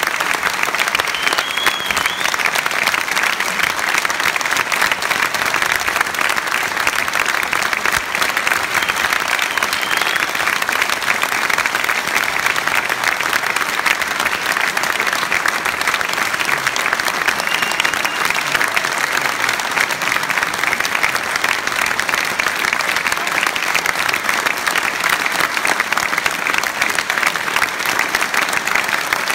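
Theatre audience applauding at a curtain call: dense, steady clapping from a full house that keeps on without a break.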